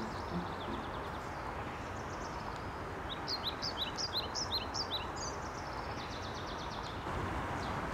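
Small birds chirping, with a quick run of short high chirps about three seconds in, over a steady background hiss of woodland ambience.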